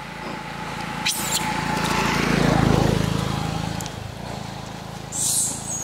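A motorbike passing on the road: its engine grows louder, peaks about halfway through, then fades away. A short high-pitched sound follows near the end.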